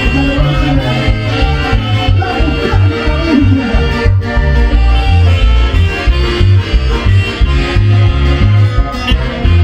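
Latin-style dance music with a steady, heavy bass beat and sustained melodic lines over it.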